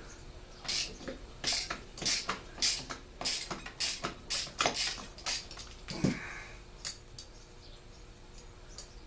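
Small metal parts and hand tools clinking and clattering together on a workbench, a dozen or so sharp clinks at about two a second that stop near the end.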